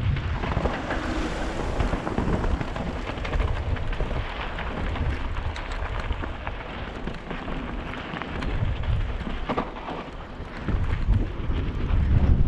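Mountain bike riding fast down a dirt trail: wind buffeting the camera microphone with a heavy low rumble over the crunch of tyres on dirt and gravel, with scattered clicks and rattles from the bike. The noise eases briefly about ten seconds in, then picks up again.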